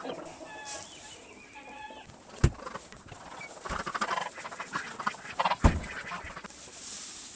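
Chickens clucking and calling, with two sharp knocks, one about two and a half seconds in and one near six seconds.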